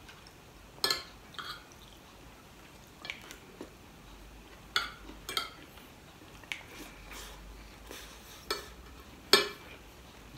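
Metal spoon and fork clinking and scraping on a ceramic plate while eating, in about eight separate sharp clinks, the loudest near the end.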